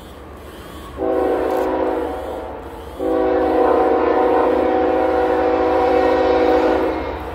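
Approaching train's air horn sounding a chord of several notes: a shorter blast about a second in, then a long blast of about four seconds. A steady low rumble from the train runs underneath.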